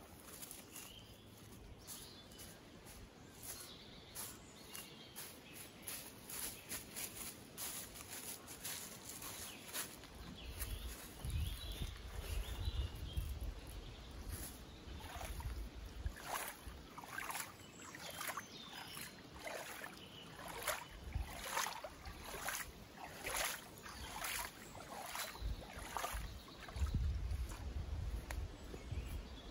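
Footsteps on a forest path, then hands splashing and swishing through a small, shallow pool to push the green film off its surface: a long run of short splashes starting about a third of the way in.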